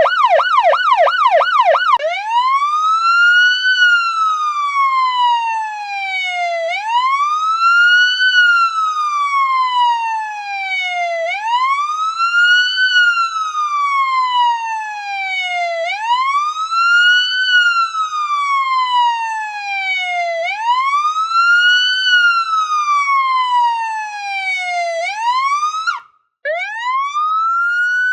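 Electronic police siren: a fast yelp for about two seconds, then a slow wail, each cycle rising quickly and falling slowly over about four and a half seconds. It cuts out briefly near the end, and a new wail begins.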